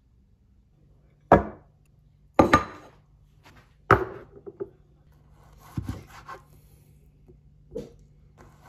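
Ceramic bowls set down on a kitchen counter: three sharp knocks in the first four seconds, then lighter clinks and taps. Near the end a knife cuts through dates on a plastic cutting board.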